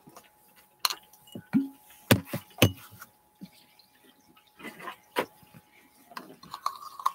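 Clear plastic candy packaging handled right at the microphone: irregular sharp taps, knocks and crinkles.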